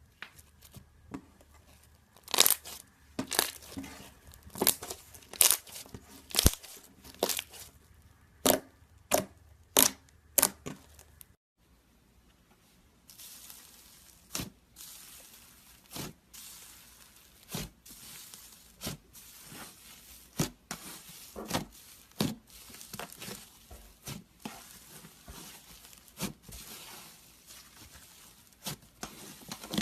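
Slime being worked by hand, giving sharp sticky pops and clicks; after a break about 11 seconds in, a steadier crackling with scattered pops.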